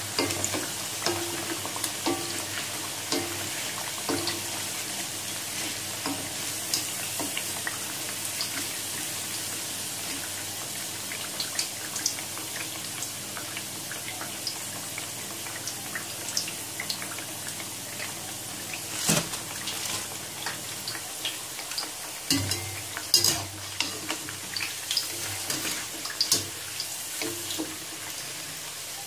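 Battered fritters deep-frying in hot oil in a pan: a steady sizzle with crackling, broken by a few sharp clicks and scrapes of a wire skimmer and spoon against the pan, most of them in the second half.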